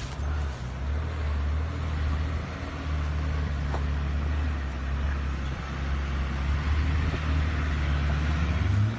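Four-wheel drive's engine running at low revs under load as it climbs a dirt hill track, growing louder near the end as it comes closer.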